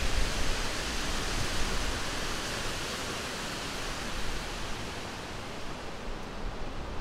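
Steady outdoor wash of wind over choppy lake water, with no distinct events, slowly growing quieter.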